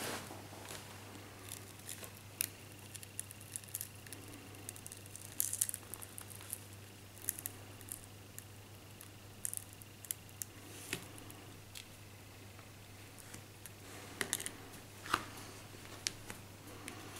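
Plastic opening pick clicking and scraping around the edge of a Huawei Y550 as its cracked glass touchscreen digitizer is pried off the adhesive, in scattered sharp clicks with a few short crackling clusters.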